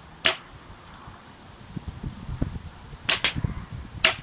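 Umarex Gauntlet .22 PCP air rifle shooting pellets at the target, heard as sharp cracks: one just after the start, a quick pair about three seconds in, and another near the end.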